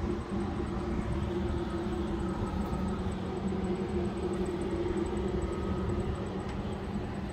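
Steady low engine rumble, like a vehicle idling, holding an even level throughout with a faint steady hum over it.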